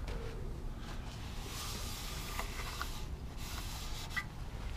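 Cloth rag rubbing over a lawnmower's plastic engine shroud: soft scrubbing strokes that swell and fade, over a steady low rumble.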